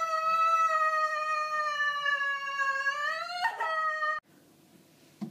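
A person's voice holding one long, high wailing note, wavering slightly, jumping up in pitch with a break near the end and then cut off abruptly.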